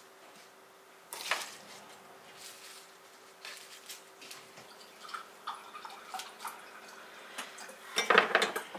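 Scattered small clicks and soft rustles of food being placed by hand on a wooden plate, with a louder cluster of clatter near the end, over a faint steady hum.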